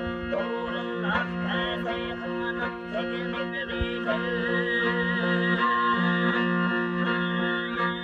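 Mongolian traditional music: a morin khuur (horsehead fiddle) bowed alongside a plucked skin-bodied lute, with overtone whistling, a steady low drone under a high, wavering whistled melody.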